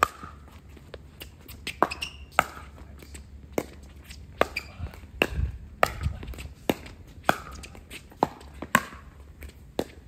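A pickleball rally: sharp pops of paddles hitting the hollow plastic ball, a dozen or so at irregular spacing, with the ball bouncing on the hard court.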